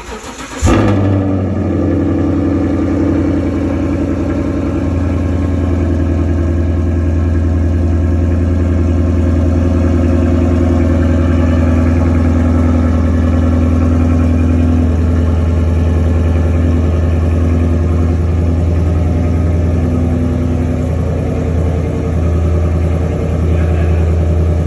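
Ford Mustang Shelby GT500's V8 engine catching about a second in with a brief loud flare, then settling into a steady idle with a strong low, even drone.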